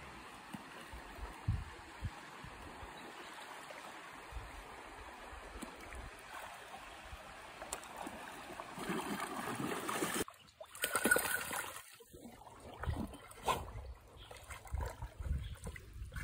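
River water splashing and sloshing as a Cane Corso swims and wades through a shallow stream, over a steady rush of flowing water. The splashing grows louder and more uneven about halfway through.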